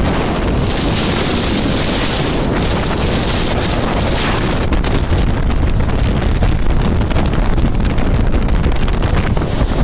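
Storm wind of about 70 knots blasting a phone's microphone: a loud, continuous rushing noise with a deep buffeting rumble, turning choppier and more gusty about halfway through.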